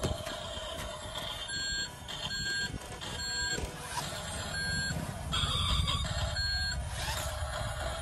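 Reversing beeper of a radio-controlled Mercedes-Benz dump truck model sounding five short beeps at uneven spacing, the signal that the truck is backing up, over a steady low rumble.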